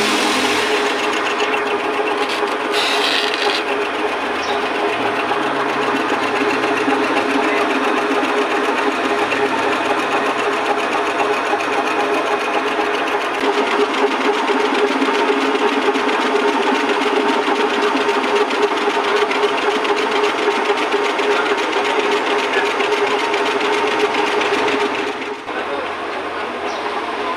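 Engine lathe running, its spinning cylinder head being faced by a cutting tool: a steady mechanical whir with a constant hum from the drive. The level drops slightly near the end.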